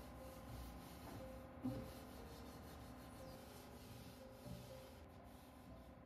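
Cloth wiping over wooden shelf slats: a faint rubbing, with one light knock a little under two seconds in.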